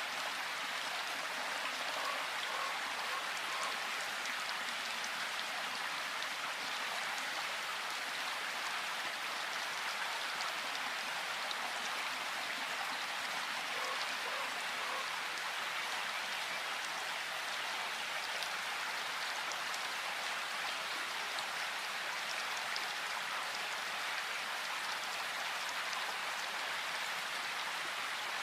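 Steady rain falling in a forest: an even, unbroken hiss of drops, with a few faint short calls twice, about two seconds in and again near the middle.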